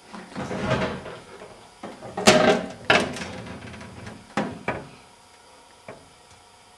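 A refrigerator being opened and handled: a rustle, then several sharp knocks and clatters, the loudest about two seconds in, with a last few near the end.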